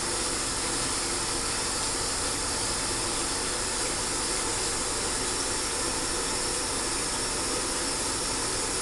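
Bathroom sink faucet running steadily into the basin, an even hiss of water, while soapy hands are rubbed together.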